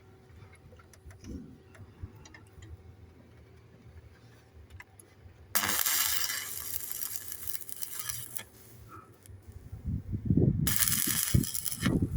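Small metal clicks and clinks, then two bursts of crackling hiss from welding patches onto a steel boat hull, the first about five seconds in and lasting about three seconds, the second near the end with low thumps under it.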